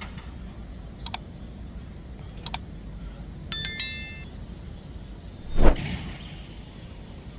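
Two quick pairs of sharp clicks, then a single ringing metallic ding about three and a half seconds in. Near the end comes a dull, heavier thump, the loudest sound, over a low steady street background.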